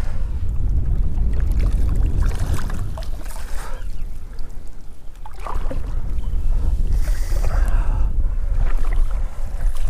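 Wind buffeting the microphone, a steady low rumble, with water lapping and splashing irregularly over it.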